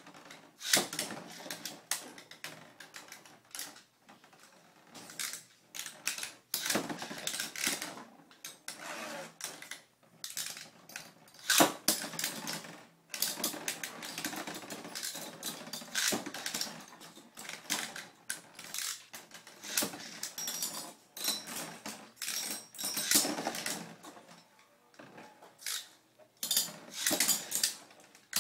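Beyblade spinning tops launched one after another into a plastic stadium, clattering and knocking against each other and the stadium walls in irregular runs of sharp clicks and rattles, with short pauses between.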